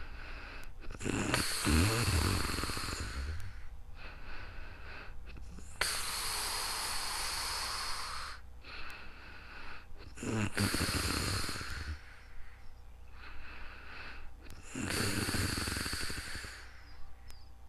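A sleeping person snoring in slow, regular breaths, about one every four to five seconds. Three breaths carry a low, rattling snore. One is a long, breathy hiss without the rattle.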